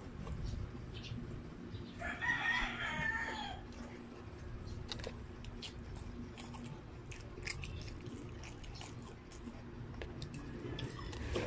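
A rooster crows once, about two seconds in, the loudest sound here. Around it, close-up mouth sounds of eating with the hands: chewing and wet smacks with many small clicks.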